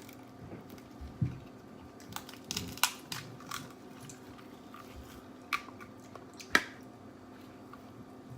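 Seafood boil being eaten by hand: scattered crunches and sharp clicks of shells and food being cracked and chewed, the loudest about three and six and a half seconds in.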